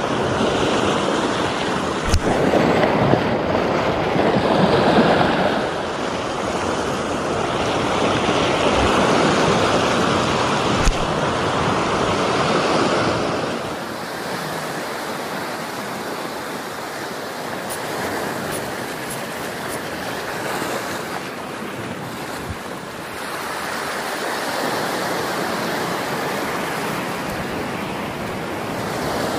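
Sea waves breaking and washing up on a beach, coming in swells that are louder in the first half.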